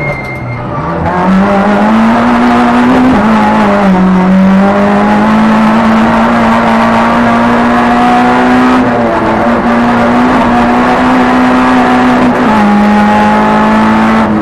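Hill-climb race car's engine heard from inside the stripped cabin, running hard at high revs. It eases off in the first second, then pulls again, its pitch dropping at gear changes about 3, 9 and 12 seconds in.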